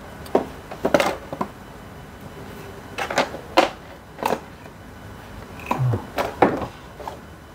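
A cardboard box being handled and set down on a desk: a scatter of light knocks and taps, about ten in all, spread through the few seconds.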